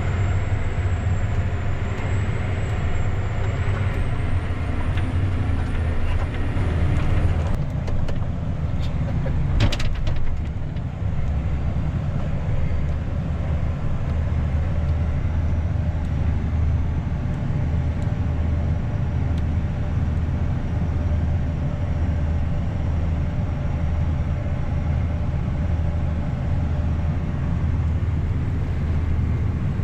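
John Deere S790 combine harvester running steadily under harvest load, heard as a steady low drone from inside the cab. A faint high whine rises slightly and stops about seven seconds in, followed by a few sharp clicks.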